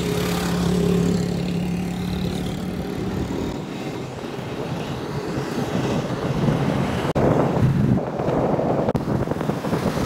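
Motorcycle running along a road, its engine hum mixed with wind rushing over the microphone; the wind rumble grows rougher and louder in the second half.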